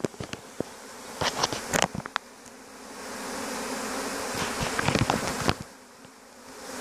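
Honeybees of a newly hived swarm buzzing over the hive's top bars: a steady hum with scattered sharp clicks. The buzz swells from about three seconds in, then drops off suddenly a little after five seconds.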